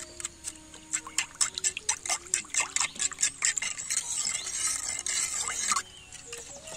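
Metal spoon stirring a milky liquid in a clay bowl: a quick run of clinks and splashes for a few seconds, then a fast swishing swirl of the liquid that stops suddenly near the end.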